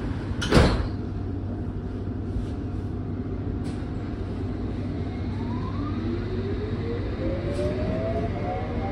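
London Underground S8 Stock train pulling away from a platform, heard from inside the carriage. A sharp clunk about half a second in, then over the steady rumble of the car the traction motors start a whine of several tones about five seconds in, rising in pitch as the train gathers speed.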